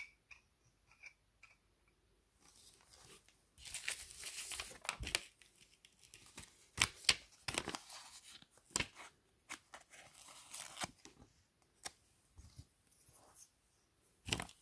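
A paper sticker sheet being handled and a sticker peeled off its backing: scratchy rustling and a tearing, peeling sound in two stretches, with several sharp clicks in between and another near the end.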